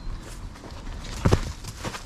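Footsteps on the ground: a few thudding steps, two heavy ones close together just after a second in.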